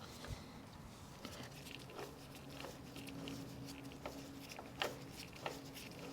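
Faint, scattered light clicks and taps in a quiet room, the two clearest close together near the end.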